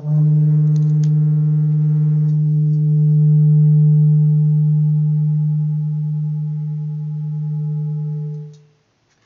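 Hand-hammered seven-metal Himalayan singing bowl struck with a mallet, ringing with a deep hum and several higher overtones. One overtone pulses slowly in the bowl's beating. The ring fades gradually, then cuts off sharply about a second before the end.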